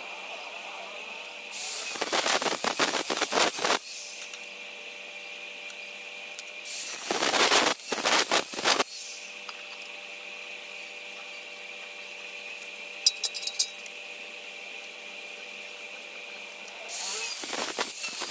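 Angle grinder's disc biting into stainless steel round tube in three short passes of about two seconds each, about two seconds in, near the middle and near the end. A steady fainter whine runs underneath, and a quick cluster of clicks comes about thirteen seconds in.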